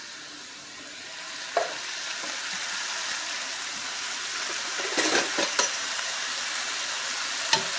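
Cubed chicken breast sizzling in a stainless steel skillet, a steady hiss that grows louder about a second in, with a few short knocks of a metal spoon against the pan.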